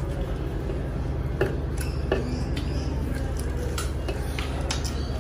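Scattered light clicks and scrapes of hands mixing rice and curry on metal plates, over a steady low hum.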